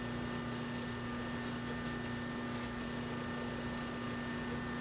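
Steady electrical hum with a low hiss underneath, level and unchanging.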